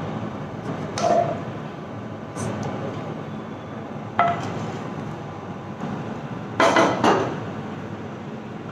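Kitchenware clinks and knocks: a steel ladle tapping the soup pan and a ceramic bowl, with a brief ring after some strikes, and cookware being set down on a hard table. Five or so separate knocks, the loudest a close pair about two-thirds of the way through.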